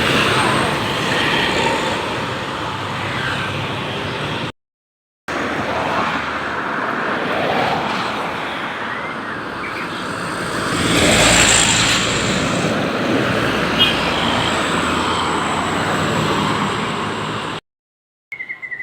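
Road traffic running past, a steady rush of engines and tyres, with one vehicle passing loudest about eleven seconds in. The sound cuts out abruptly twice.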